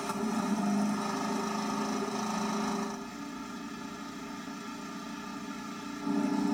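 IndyCar engines idling steadily on the starting grid, a steady hum with a drop in level about halfway through, heard through a television speaker.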